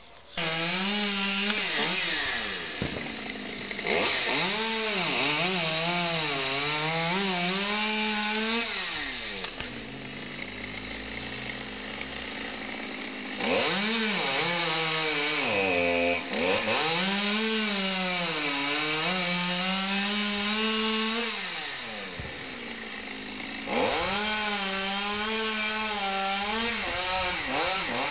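Chainsaw cutting into a horse chestnut tree, revving hard in three long spells with its pitch sagging and climbing as it works. Between spells it drops to a lower, quieter run.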